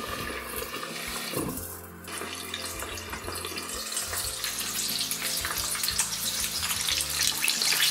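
Chicken drumsticks frying in oil in a lidded pan, a steady sizzle muffled by the glass lid. It grows louder near the end as the lid is lifted off.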